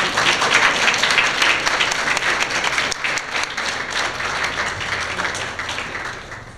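A crowd applauding with many hands clapping; the applause dies away near the end.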